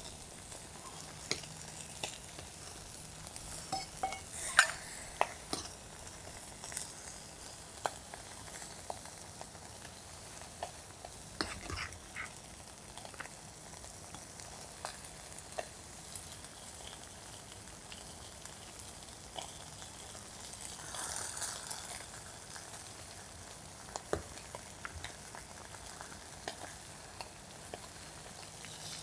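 A hotpot simmering with a steady sizzle over a charcoal fire, with scattered sharp clinks of metal tongs and a ladle against the pot and a steel bowl as the food is served out. About two-thirds of the way through there is a short rush of louder splashing noise.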